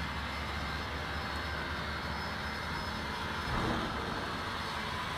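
Narrow-gauge steam locomotive No. 487 standing at rest, giving off a steady hiss over a low hum, with a brief louder swell about three and a half seconds in.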